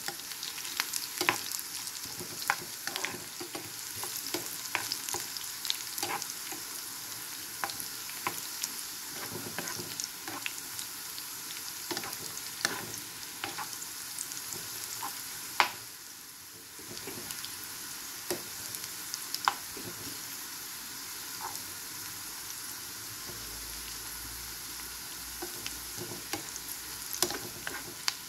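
Onion, garlic and panch phoron (five-spice seeds) frying in hot oil for a tempering (baghar), with a steady high sizzle. A spatula stirs through it, and there are scattered sharp clicks and pops. The tempering is browning to golden.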